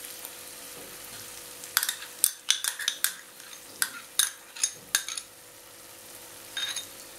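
Metal spoon clinking and scraping against a cup as thick whisked yogurt is scraped out into a kadai: a quick run of sharp taps in the middle, a few lighter ticks near the end. Under it, a faint sizzle of masala paste frying on very low heat.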